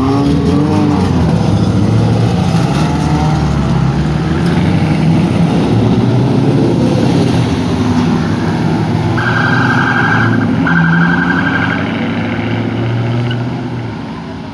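Car engines running loud and revving during street donuts and burnouts, the revs rising and falling in the first second. About ten seconds in come two horn blasts of about a second each.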